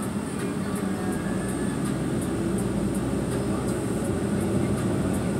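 Steady engine and road noise heard from inside a moving vehicle's cabin, a low rumble, with a faint regular high ticking about two to three times a second.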